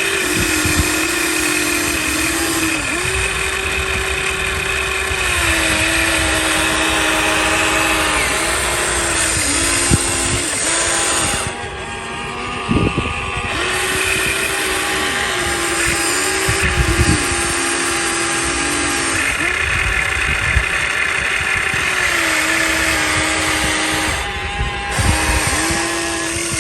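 Huina radio-controlled toy excavator's electric motors whining steadily. The pitch steps up and down between a few levels as the machine works, with occasional light knocks.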